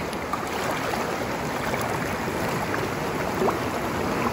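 A river rushing steadily, with a short rising chirp about three and a half seconds in.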